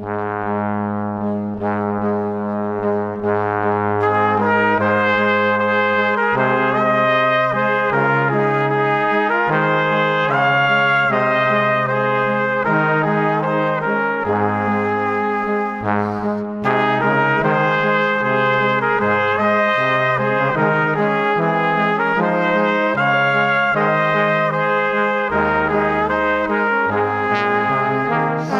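Background music: an instrumental tune of held notes over a stepping bass line.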